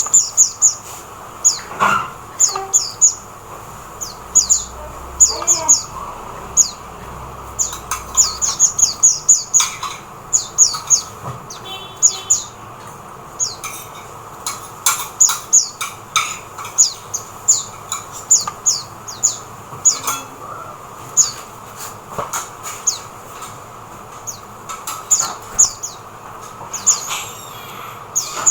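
Oriental white-eye calling: short, high chirps that fall in pitch, given in quick runs of two to five and repeated again and again.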